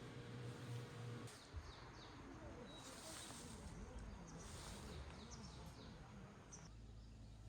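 Faint bird calls, short high chirps and sweeping notes, over quiet outdoor background noise. A steady low hum stops abruptly about a second in.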